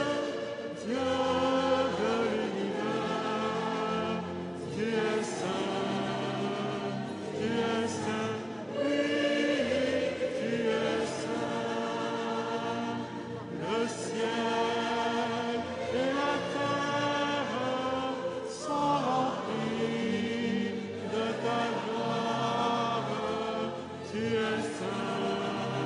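Church choir singing a hymn in several voices, with music continuing without a break.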